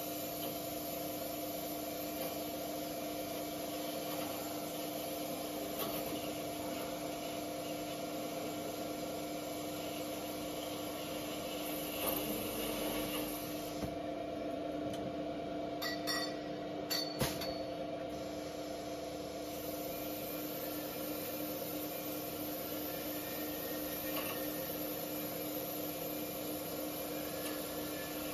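Automatic double-head tube chamfering and boring machine running: a steady motor hum with a few fixed tones, and a handful of sharp metallic clicks and knocks a little before and after halfway through.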